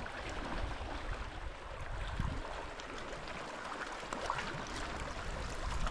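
Wind buffeting the microphone over the rush of sea water on a rocky shore, with a few faint ticks about four seconds in.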